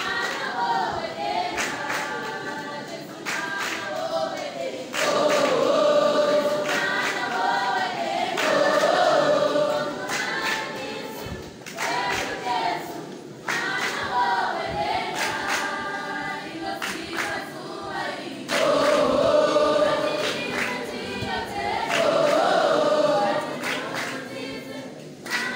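A large mixed school choir singing unaccompanied in harmony, in loud phrases of a few seconds each that swell and fall back.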